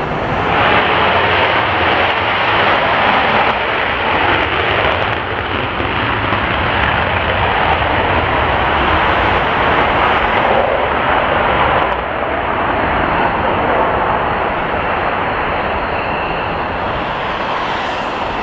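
Lockheed Martin F-35A Lightning II's single Pratt & Whitney F135 turbofan in afterburner on the takeoff roll and climb-out: a loud, steady jet noise that drops slightly about twelve seconds in and then slowly eases as the fighter climbs away.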